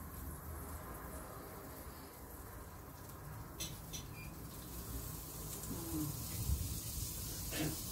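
Meat and vegetables sizzling faintly on a tabletop electric grill over a steady low hum, with two light clicks of tongs against the grill about three and a half seconds in.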